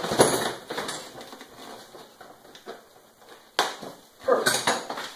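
Hand assembly noises on a Brinly lawn sweeper: scattered light clicks, rattles and rustles of parts being handled on the metal hopper frame. One sharp click comes about three and a half seconds in.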